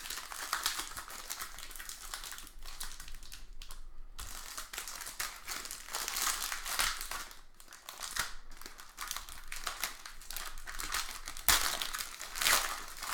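Plastic trading-card wrapper crinkling and tearing as a pack is opened and the cards are handled, a crisp crackle that comes and goes with short pauses and a louder flurry near the end.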